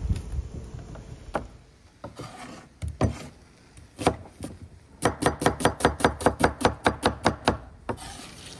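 Knife chopping on a wooden cutting board: a few single cuts, then a fast run of about seven strokes a second for about three seconds.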